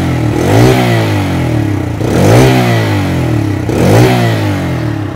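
Bajaj Freedom 125's 125 cc single-cylinder engine running on petrol, blipped three times from idle, each rev rising and falling back. A smooth, refined exhaust note.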